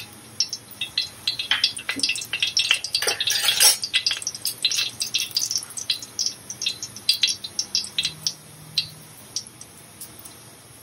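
Whole spices (cinnamon, cardamom pods, cloves) crackling and popping in hot coconut oil in a pan: scattered sharp crackles, thickest in the first few seconds and thinning out towards the end.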